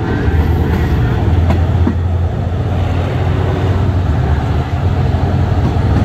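Twin Cummins LTA50L V16 diesel engines of the locomotive running with a steady low drone, heard from the open-windowed coach behind it, mixed with wheel-on-rail noise. Two sharp clicks come about one and a half and two seconds in.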